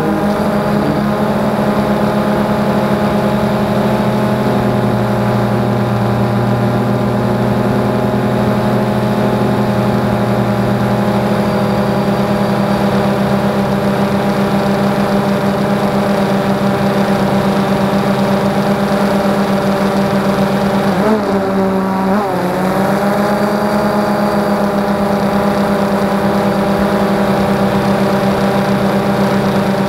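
DJI Phantom 2 quadcopter's motors and propellers running with a steady, even hum, picked up close by the camera on board the drone. About 21 seconds in, the pitch dips briefly and glides back up as the motor speed changes.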